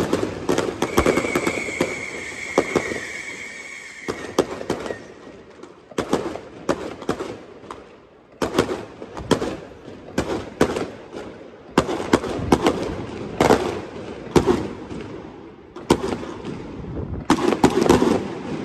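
Aerial fireworks display: a dense barrage of bangs and crackling that thins out over the first few seconds, with a high steady whistle lasting about three seconds. Then come scattered volleys of sharp bangs and crackle every second or two.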